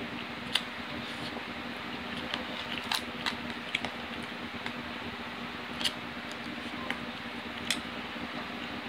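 Close-up eating sounds: chewing fried chicken and rice with a plastic spoon, with a few scattered sharp clicks and smacks over a steady low hum.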